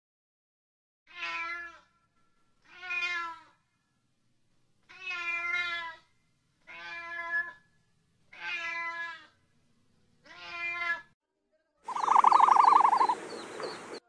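Fishing cat meowing, six separate short calls spaced a second or two apart. Near the end comes a louder, harsher sound of a different kind.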